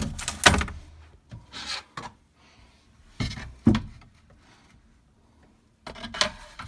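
Handling noise: short bursts of rubbing and knocking close to the microphone, a second or two apart, the loudest at the start and again near the end.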